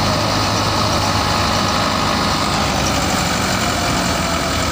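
Massey Ferguson 385 tractor's four-cylinder diesel engine running steadily under load while driving a wheat thresher, whose running blends in with the engine.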